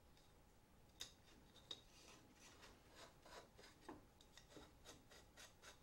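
Faint handling sounds of a steel threaded rod being slid through a hole in a wooden block and a nut started on it: a sharp click about a second in, another soon after, then a string of small metal ticks and rubbing.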